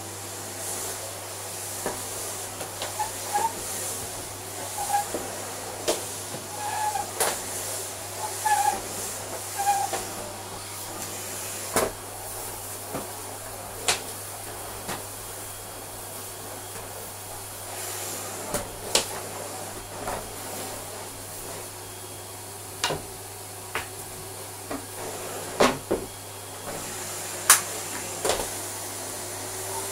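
Miele Complete C3 Silence cylinder vacuum cleaner running, a quiet steady hum with an airflow hiss, while its floor tool and wand give frequent sharp clicks and knocks as they are pushed over a rug and hard floor. A few short squeaks come in the first ten seconds.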